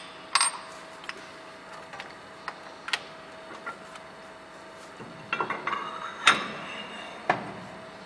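Metal clicks and clanks from a hydraulic bolt tensioner being handled and set into the steel top plate of a test rig, with a burst of clatter and a loud clank about six seconds in, over a faint steady hum.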